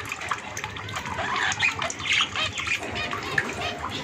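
Caged pet birds chirping and squawking in quick short calls while water trickles and splashes from a drip shower they are bathing under.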